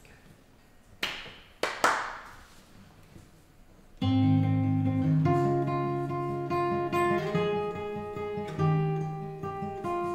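A few short knocks and rustles, then about four seconds in a steel-string acoustic guitar starts a plucked intro of sustained, ringing notes.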